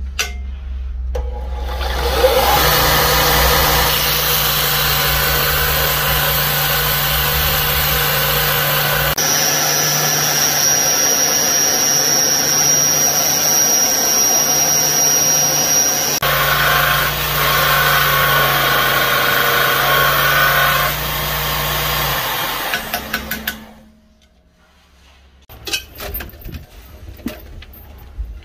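Belt grinder running while a steel knife blank cut from a bearing outer race is pressed against the belt: a loud, steady grinding hiss over the motor's hum, its tone shifting abruptly a couple of times. The grinding stops a few seconds before the end, leaving a few light taps.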